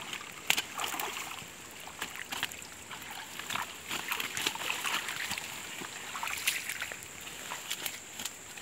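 Water sloshing and splashing as a wet cast net holding a fish is hauled out of a shallow stream, then irregular rustling and crackling as the net is dragged through undergrowth and stepped on along the bank.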